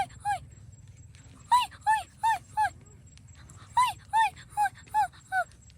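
An animal's short, high-pitched yelping calls, one near the start and then two quick runs of four and five calls, about three a second, with a pause between runs.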